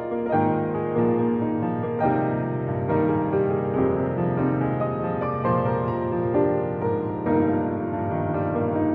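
Background piano music, with several notes sounding together and new notes starting about once a second.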